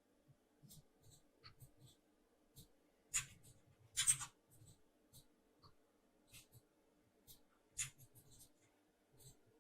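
Faint, scattered clicks and taps from working a computer at a desk, with the loudest about three and four seconds in and another near eight seconds, over a faint steady hum.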